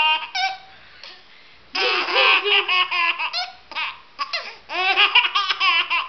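A baby laughing hard in high-pitched belly laughs: one short burst right at the start, a pause of about a second, then long runs of laughter from about two seconds in.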